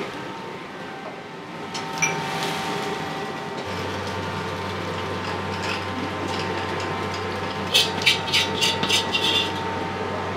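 Wok kitchen noise: a steady hum of gas wok burners and extraction that grows deeper about a third of the way in, with a quick run of about six metal clanks of a ladle against the wok near the end.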